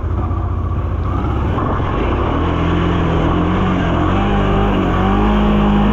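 Honda Transalp motorcycle engine running steadily, its note climbing a little in the second half as it revs.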